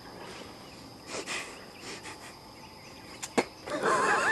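Outdoor woodland background: a steady high insect drone with faint rustling, one sharp click a little over three seconds in, and a few short chirps near the end.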